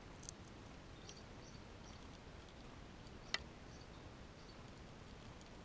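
Faint small clicks of a squirrel nibbling and handling food close to the microphone, with one sharp click a little over three seconds in, over a steady low hiss.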